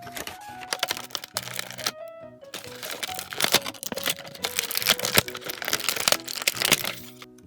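Background music with a simple melody, over which toy packaging crinkles and crackles in dense, irregular bursts as it is handled; the crackling is the loudest sound and stops shortly before the end.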